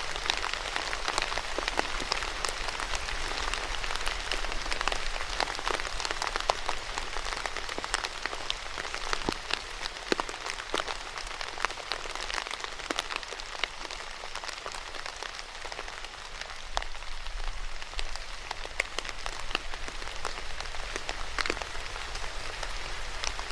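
Steady rain falling, with many sharp individual drop hits scattered through an even hiss.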